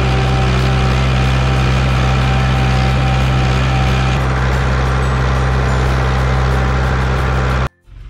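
A vehicle engine running at a steady speed, loud and even, with a constant low drone; it cuts off suddenly near the end.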